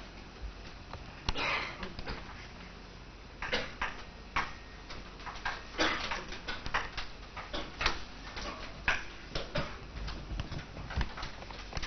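Irregular small clicks and taps, with a few short scraping rustles between them.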